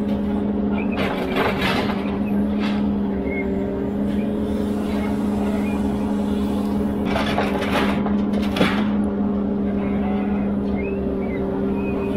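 Ponsse Elephant forwarder's diesel engine running steadily while its hydraulic loader crane works, the engine note wavering slightly under load. Two short rushing noises come through, about a second in and again past the middle, followed by a single sharp knock.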